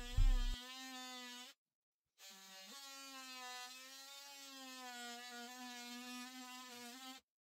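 Oscillating multi-tool fitted with an old blade, cutting slowly through dry plaster, a steady buzzing whine that wavers slightly in pitch. It stops about one and a half seconds in, starts again under a second later, and stops near the end. A short low thump comes at the very start.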